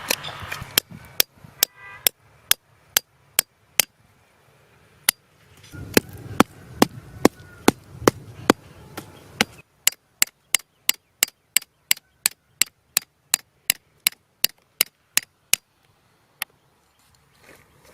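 A hand tool striking wood over and over in a steady run of sharp knocks, about two to three a second. The run pauses briefly about four seconds in, and the last knock comes about a second and a half before the end.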